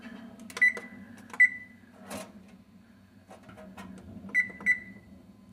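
Frigidaire oven's electronic control panel beeping as its touchpad buttons are pressed: single short beeps of the same pitch, two about a second apart and then two in quick succession about four seconds in, the key-press tones of setting the cook timer.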